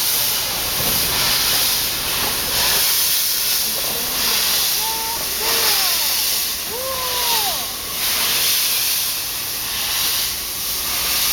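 Steam locomotive No. 8630, of the 8620 class, venting steam with a loud hiss that swells and eases about once a second. Faint voices are heard in the middle.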